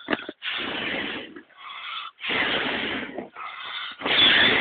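Someone blowing hard in three long, breathy puffs of about a second each.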